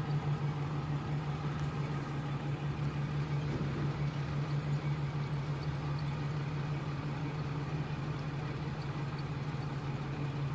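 Vehicle engine running steadily at low speed, a constant low hum, as the vehicle backs up slowly.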